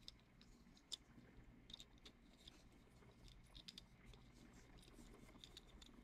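Near silence broken by faint, scattered small clicks of a screwdriver tip turning the screws of a screw-terminal block on an induction heater module, the sharpest about a second in.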